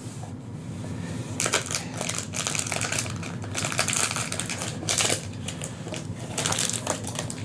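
Foil-wrapped trading-card booster packs and their cardboard box crinkling and rustling as they are handled, in irregular crackly strokes starting about a second and a half in, over a steady low hum.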